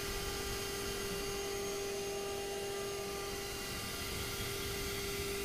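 Router spindle running at speed with a steady whine while cutting fret slots in a guitar fretboard.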